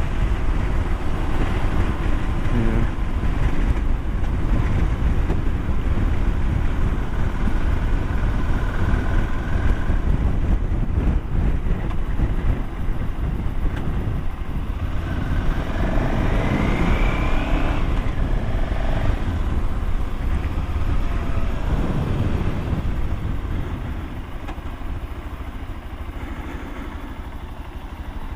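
Motorcycle running at road speed, with heavy wind and road rumble on a GoPro microphone. A rising whine about halfway through, and the noise eases a little near the end.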